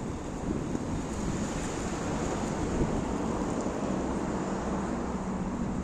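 Steady rushing noise with a low rumble underneath.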